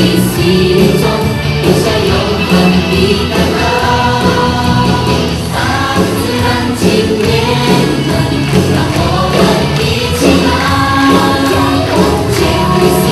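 Upbeat song with a choir of voices singing over a steady beat.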